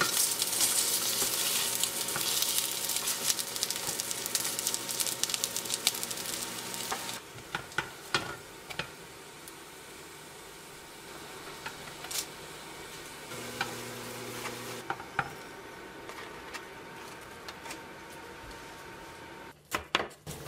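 Dumplings sizzling and crackling in oil in a frying pan while silicone tongs shift them about. After about seven seconds the sizzle falls to a faint hiss with scattered taps as the dumplings are lifted out. Near the end comes a couple of sharp knife strokes on a wooden cutting board.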